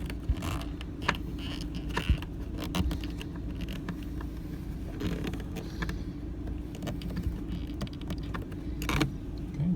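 Small clicks, knocks and creaks of a short flathead screw being driven by hand into the plastic housing of a replacement Thetford RV toilet valve, over a steady low hum.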